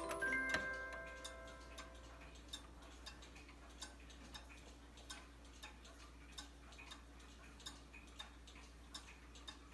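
Large carved Black Forest cuckoo clock: the last notes of its tune ring out in the first second or so, then the pendulum movement ticks steadily, about one and a half ticks a second.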